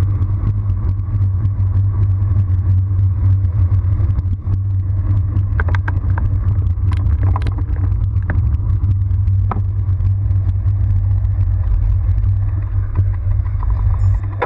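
Wind rumbling on the camera's microphone with tyre noise from a road bike rolling downhill and slowing, with a few sharp clicks in the middle. The rumble drops away suddenly at the end as the bike comes almost to a stop.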